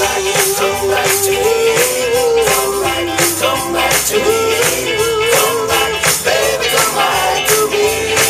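Music: a melody line that bends and slides in pitch over a steady, even beat.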